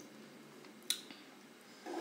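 Quiet sounds of eating with the hands: a single sharp click about a second in, then a soft handling sound near the end as fingers pull at a piece of grilled chicken on the plate.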